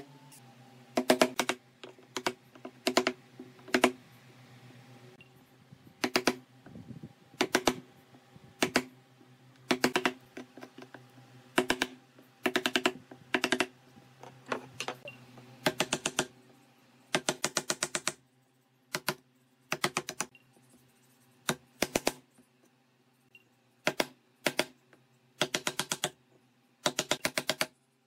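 Wooden mallet striking a wood-handled chisel, chopping small recesses into a board. The sharp taps come singly and in quick runs of several, with short pauses between, over a faint steady hum.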